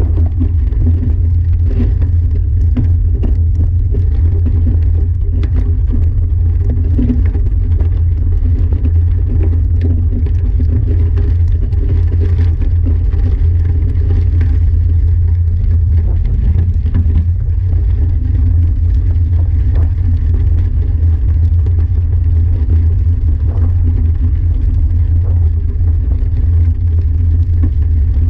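Steady, loud rumble of tyres rolling over a gravel trail, mixed with wind buffeting an action camera's microphone, with a faint crackle of loose stones throughout.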